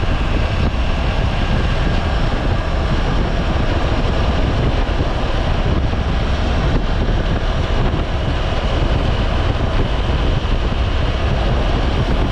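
Motorcycle under way on the highway: steady rush of wind and road noise with the engine running underneath, unchanging throughout.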